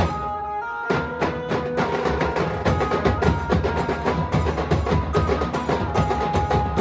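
Dhol band playing: fast, dense drum strokes over a melody of held notes. The drums drop out for a moment at the start and come back in under a second in.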